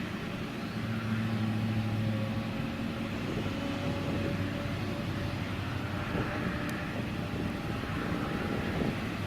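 Airbus A320neo's Pratt & Whitney PW1127G geared turbofan engines running steadily: a continuous hum with several held tones over a rushing noise, the low hum strongest for a second or two near the start.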